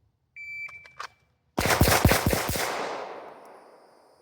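Shot timer's start beep, then about a second later five pistol shots fired in quick succession, with the echo fading out after them.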